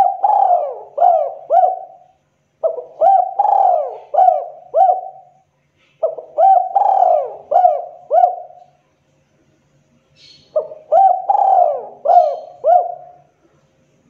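Spotted dove cooing in breeding condition: four phrases, each of four or five rising-and-falling coos, repeated every three to four seconds, the first already under way at the start.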